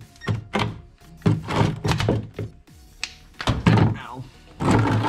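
Cordless electric ratchet running in short, irregular trigger bursts, about eight in all, spinning out the oil pan drain plug to drain the engine oil.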